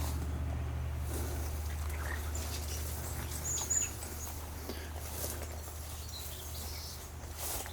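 Outdoor rural ambience: a steady low hum fading slowly, with a few faint high bird chirps and scattered soft clicks.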